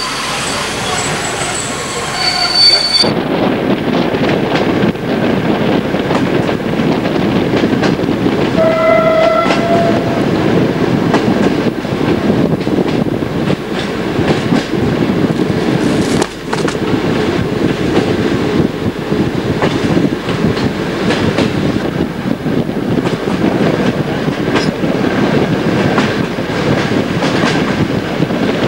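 Passenger train running, heard from inside the carriage: a steady rumble and rattle of wheels on track. The wheels squeal with high tones for the first three seconds or so, and the horn sounds briefly about nine seconds in.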